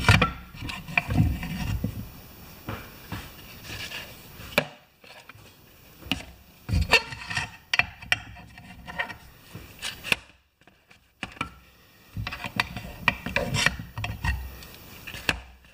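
A putty knife scrapes thick old grease out of a lawn tractor transaxle housing in irregular strokes. The strokes come with small knocks of the blade against the metal and brief pauses between clusters.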